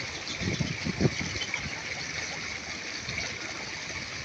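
Steady rushing outdoor background noise, with a few faint low sounds in the first second or so.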